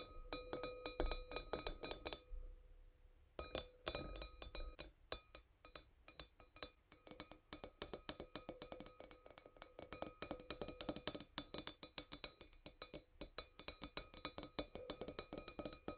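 Fingernails tapping fast and gently on a tiny wine glass: a rapid run of bright clicks, the glass ringing on under them. About two seconds in the tapping stops for about a second while the ring fades, then resumes.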